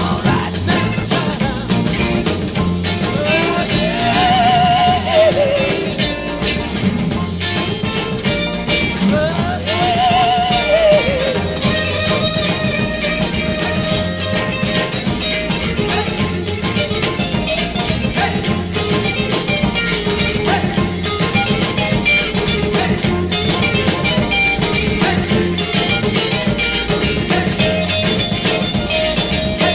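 Instrumental break in a 1960s rock-and-soul band recording: the full band keeps a steady beat while a high lead line bends and wavers twice in the first third, then settles into a repeated riff.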